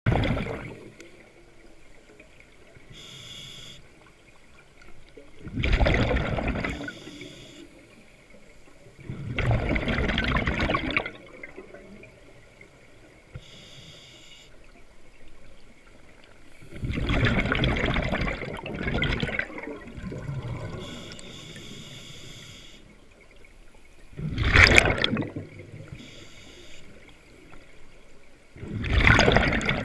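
A scuba diver breathing through a regulator: a quiet hiss on each inhale, then a loud rush of exhaust bubbles on each exhale, about every five seconds.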